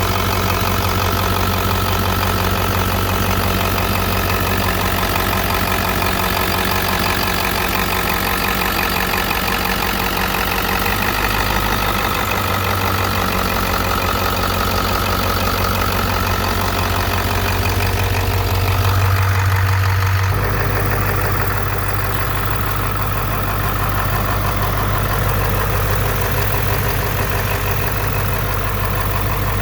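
Ford 7.3 Powerstroke V8 turbo diesel engine running steadily at idle; about two-thirds of the way through its note changes and turns duller.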